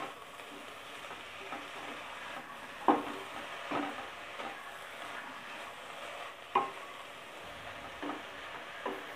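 Wooden spatula stirring sprouted mung beans in a metal kadai over a soft steady sizzle, the beans scraping and tumbling. A few times the spatula knocks sharply against the pan, which rings briefly.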